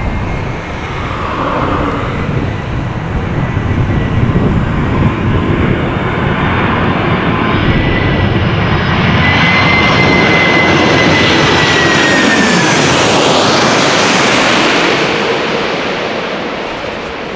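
McDonnell Douglas MD-11 tri-jet on final approach passing low overhead. Steady jet engine noise with a high whine grows louder as it nears, peaks as it goes over about two thirds of the way in, then drops in pitch and fades.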